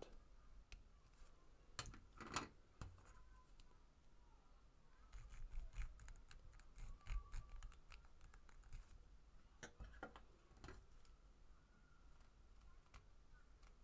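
Faint scraping and clicking of small tools inside the hole of a clear plastic spirograph gear: a round diamond needle file rasping at the seam, and a pencil run round the hole to check it, with a handful of sharper clicks.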